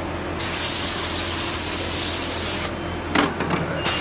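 Compressed-air blow gun hissing at the open mould of an EVA shoe-moulding machine: one long blast of about two seconds, then several short blasts near the end. The machine's steady hum runs underneath.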